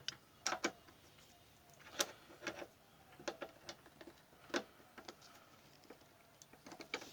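Screwdriver tip clicking and scraping in a grinder-cut slot on a seized bolt, a string of sharp metal ticks and knocks a half second to a second apart as it slips without turning the bolt. The soft bolt metal is giving way at the slot.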